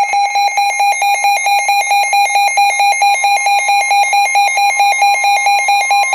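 Electronic alert tone of an emergency alert broadcast, a loud steady-pitched beep pulsing rapidly at about four beeps a second.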